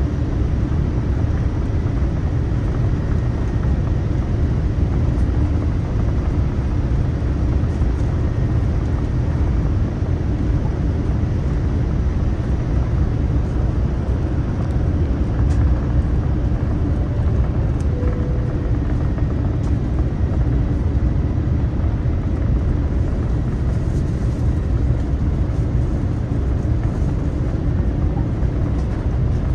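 Boeing 787-9 airliner in flight, heard from inside the cabin: a steady low rush of airflow and engine noise that holds an even level throughout.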